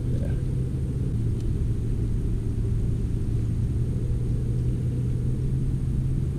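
Steady low rumble with a constant low hum, unbroken throughout.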